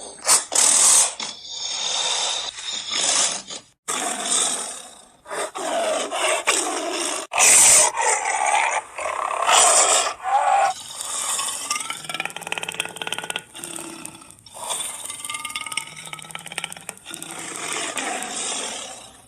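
A series of animal calls: rough growls and roars alternating with higher pitched cries, with short pauses between them.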